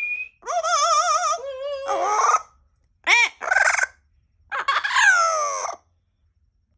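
Amazon parrot vocalising: a wavering, warbling call with a fast vibrato, a few short calls, then a long call falling in pitch about four and a half seconds in.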